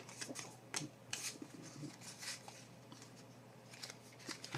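Trading cards being handled and flipped through by hand: faint rustles and light flicks of card stock sliding over one another, with a sharper click at the very end.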